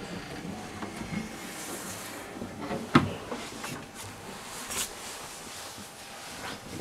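Camera handling noise and fabric rustling as a dark hooded jacket brushes right against the camera, with one sharp knock about three seconds in.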